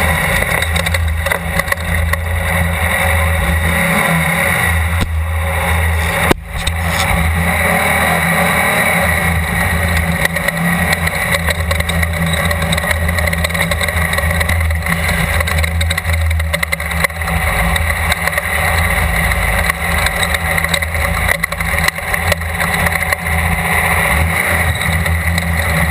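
Off-road desert race car's engine running hard and continuously, loud and steady, with a brief break about six seconds in.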